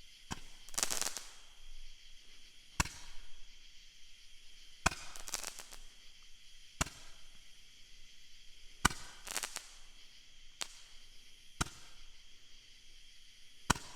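A Roman candle firing shot after shot, about one every two seconds. Each shot is a sharp pop, and several are followed by a short crackle.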